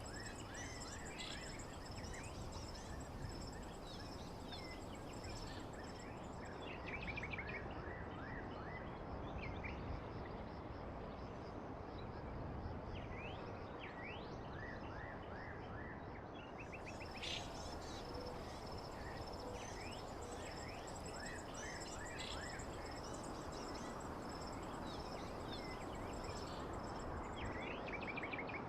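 Nature ambience: many birds chirping with quick repeated calls over a steady background hiss, with a high, steady insect-like trill.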